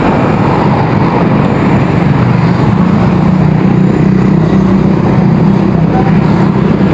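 Steady wind rush on the microphone of a moving bicycle, mixed with the noise of car traffic on a busy road.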